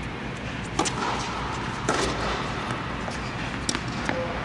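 Tennis balls struck by rackets in a doubles rally: a serve about a second in, the return about a second later, and another shot near the end. The first two hits echo under the air-dome roof.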